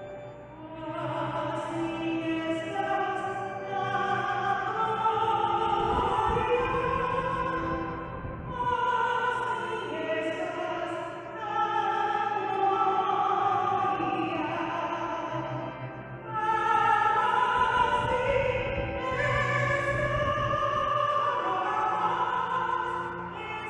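Church choir singing in harmony, several voices on long held notes, in phrases with short breaks between them.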